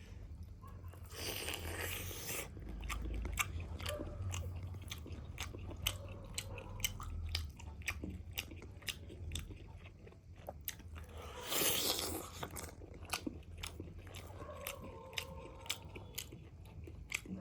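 A person eating crispy fried chicken leg pieces close to the microphone: many sharp crunches as the crust is bitten and chewed, with two longer, louder noisy stretches, about a second in and again about two-thirds of the way through.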